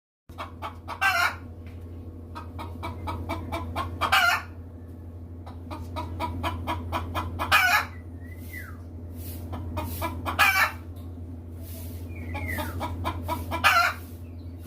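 Hen clucking in runs of quick clucks, each run ending in a louder, longer call, about every three seconds. A steady low hum lies under it, and two short gliding chirps are heard, one about eight seconds in and one near the end.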